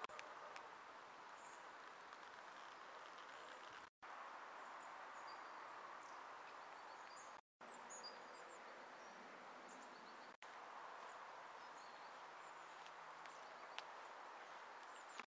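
Faint, steady outdoor background noise with a few distant, short high bird chirps. The sound drops out completely for a moment three times.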